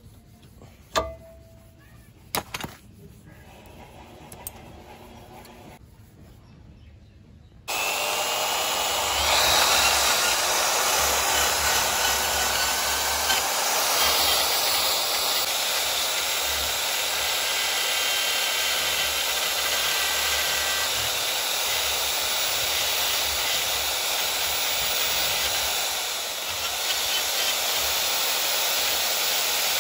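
A few light clicks and knocks, then about eight seconds in a power tool starts suddenly and runs steadily.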